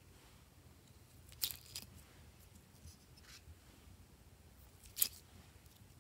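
A few small sharp clicks and taps as hexagon-shaped pieces are handled and set down into glossy slime: a double click about one and a half seconds in, a faint one midway, and the sharpest about five seconds in.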